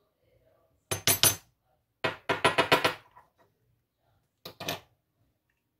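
Small metal lock parts from a disassembled pin-tumbler cylinder clinking against metal and a hard surface: a quick cluster of clicks about a second in, a longer rattling run of clicks around two to three seconds in, and two more clicks near the end.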